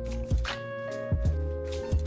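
Background music with a steady beat: a low drum hit about every 0.8 s under held synth-like tones.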